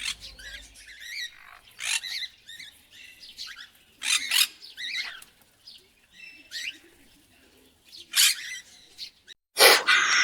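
Birds chirping in short, separate high calls, with louder, harsher calls starting near the end.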